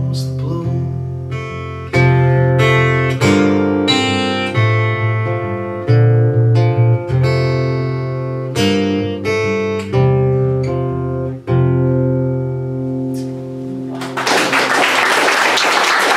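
Acoustic guitar playing the song's closing bars, chords struck one after another and left to ring. About fourteen seconds in the last chord dies away and the audience starts applauding.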